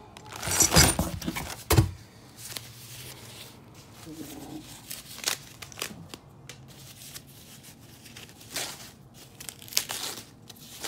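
Plastic packaging crinkling and rustling as kit parts and a bag of hardware are handled and unwrapped from a cardboard box, loudest about a second in, with a sharp knock just before two seconds and scattered shorter rustles after.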